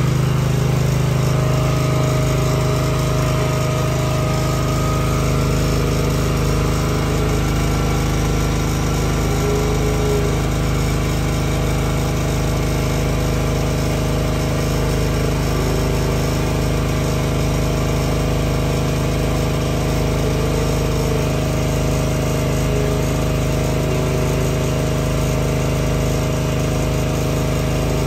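An engine-driven machine running steadily, a constant hum that holds the same speed throughout.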